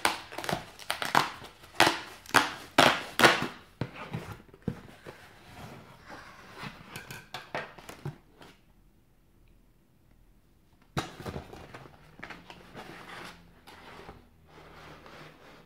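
Cardboard shipping box being opened: a quick run of sharp cardboard cracks and scrapes over the first few seconds, then softer rustling as the flaps are worked loose, with another sharp crack and more rustling about eleven seconds in.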